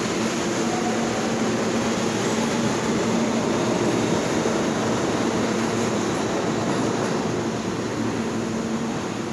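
New York City subway train running, a steady rumble with a low, even hum through it.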